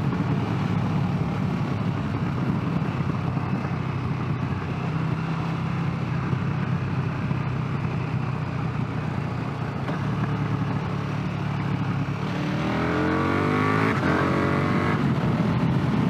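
Motorcycle engine pulling steadily at road speed under a rush of wind noise. About twelve seconds in it revs up hard in several rising sweeps through the gears, accelerating through an overtake.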